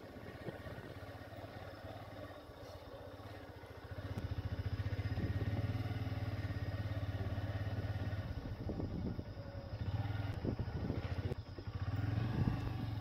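Small motor vehicle engine running steadily, heard from the vehicle as it travels, growing clearly louder about four seconds in.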